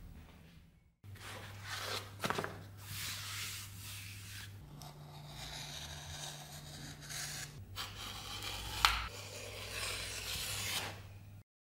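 Utility knife blade being drawn through thick leather on a plastic cutting board: a series of rasping, scraping cutting strokes. A single sharp click stands out near the end.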